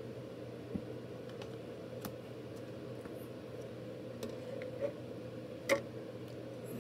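Light clicks and taps of a clear plastic card holder being handled and set against a plastic surface, a handful of separate taps with the loudest about two-thirds of the way in, over a steady low hum.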